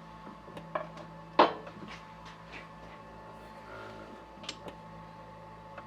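Scattered light clicks and knocks from an MDF rose engine lathe being worked, with one sharper knock about a second and a half in, over a steady hum that stops near the end.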